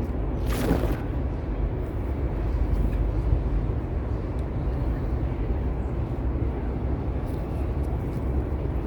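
Steady low outdoor rumble, with a short burst of noise about half a second in.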